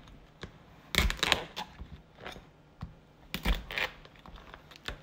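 Knife blade cracking through the hard shell of steamed snow crab legs at the joints against a wooden cutting board: two main crunches, about a second in and about three and a half seconds in, with lighter clicks and knocks between.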